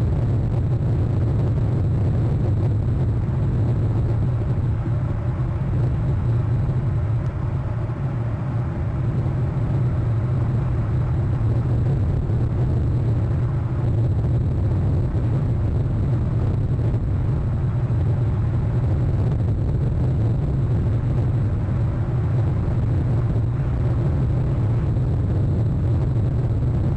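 Steady low rumble with no clear calls or sudden sounds.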